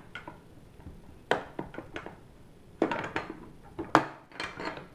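Clickfree HD1035 drive casing being forced apart with a small flathead screwdriver: a string of sharp clicks and knocks, the loudest about four seconds in, as a cover is worked off.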